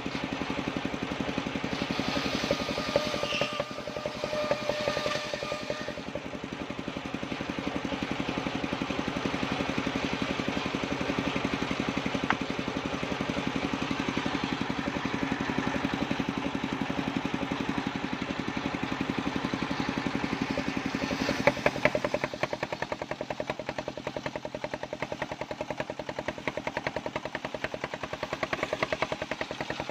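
An engine-driven homemade circular saw rig running steadily, with a rapid, even pulsing beat. About 21 seconds in there is a short burst of clattering, and after it the rig runs a little quieter.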